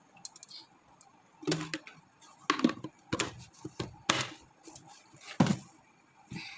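Scattered light knocks and clicks, about ten in all at uneven spacing, with a few louder thuds about two and a half, four and five and a half seconds in, as of kitchen utensils and cookware being handled.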